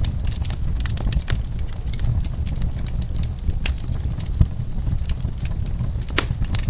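Wood fire in a fireplace crackling: a steady low rumble of burning with many sharp pops and snaps, one louder pop near the end.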